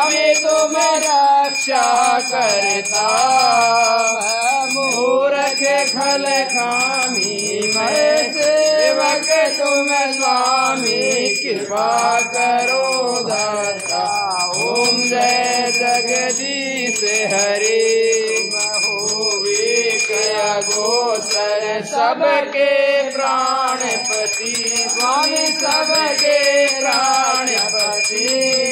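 Devotional hymn sung in a wavering melodic voice throughout, with a steady high ringing tone beneath it.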